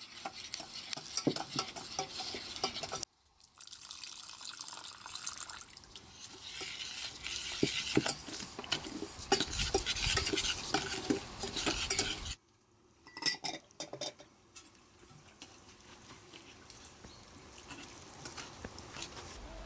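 A metal spoon stirring sugar into pomegranate juice in a stainless steel pot, scraping and clinking against the metal. The sound breaks off abruptly about three seconds in and again about twelve seconds in, and is quieter over the last few seconds.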